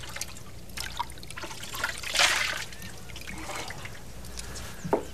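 A brief rush of liquid about two seconds in, such as a pour or splash, over a steady low hum, with a few faint clicks.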